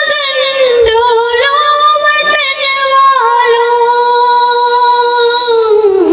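A woman singing a Hindi poem in a high, melodious voice, drawing the words out into long held notes. The longest note is held for about two and a half seconds in the middle, then slides lower near the end.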